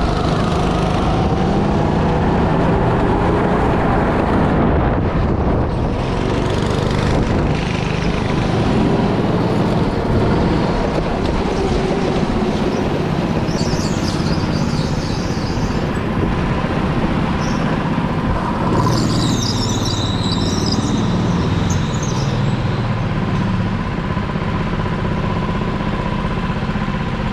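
Go-kart engine running at shifting revs under wind noise, with brief high squeals about halfway through and again a few seconds later.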